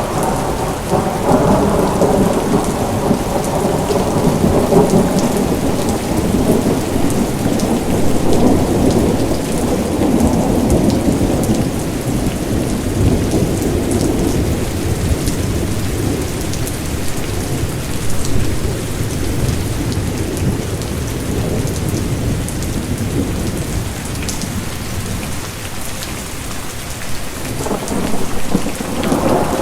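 Steady heavy rain falling on a surface, with rolling thunder: a long rumble at the start fades away over about twenty seconds, and another builds near the end.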